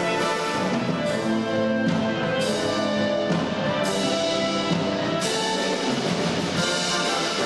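Wind band music: brass playing sustained chords over drums and percussion, with a few sudden changes in the sound's brightness.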